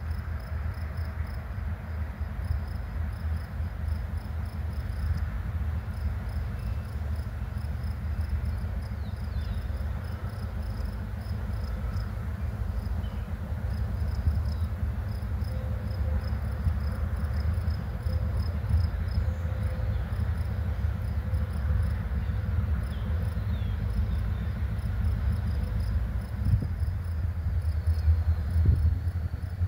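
Diesel-electric locomotive engine running as a freight train approaches slowly, a steady low rumble that grows a little louder near the end. Insects chirp in a fast, even rhythm over it.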